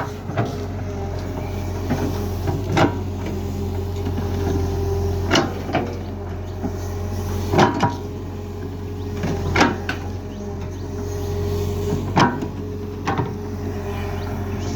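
Cat excavator's diesel engine running at a steady drone, with sharp knocks and clanks every one to two seconds, some in quick pairs, as the machine works.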